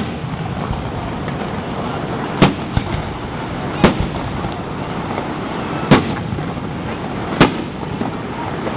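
Fireworks exploding: four sharp bangs a second and a half to two seconds apart, each with a short echoing tail, over a steady background of outdoor noise.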